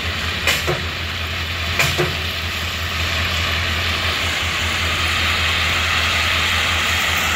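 Crushed ballast stone pouring from the open hopper doors of a slowly moving ballast car: a steady rushing hiss that grows a little louder after a few seconds. Under it is the constant low drone of the EMD SD40-2 diesel locomotive, and there are two short clicks near the start.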